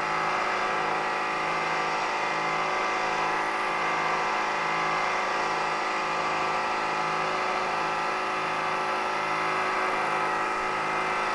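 Milling machine spindle running steadily at about 3200 RPM on a VFD, a steady whine with a low hum that swells and fades about every three-quarters of a second.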